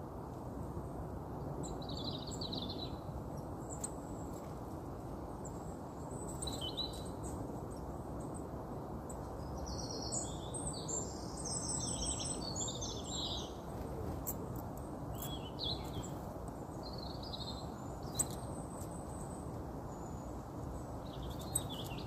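Small birds chirping in scattered bursts, busiest in a run of rapid chirps about halfway through, over a steady low background noise. Two sharp taps come near the end.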